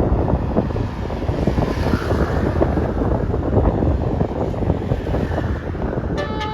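A bus passing close by: loud rumbling engine and road noise with wind buffeting the microphone. Near the end, a multi-tone telolet bus horn starts playing a tune.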